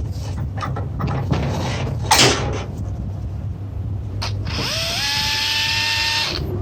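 Knocks and clatter of metal parts being handled. Then, about two-thirds of the way in, a small electric motor spins up with a rising whine, runs steadily for about two seconds and stops.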